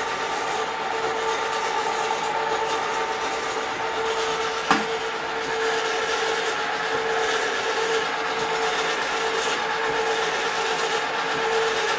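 Two kettle-style popcorn machines running with their kettles heating: the stirring motors hum steadily and the agitators scrape inside the kettles before the test kernels have popped. One sharp click about five seconds in.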